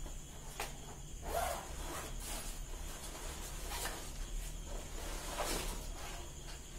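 Packaging rustling and rubbing in several short scrapes as a ring light is unwrapped and pulled out of its box, over a faint low hum.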